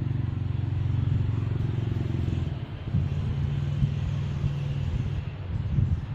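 An engine running steadily at idle, a low, even hum that dips briefly in the middle, with a few irregular low knocks near the end.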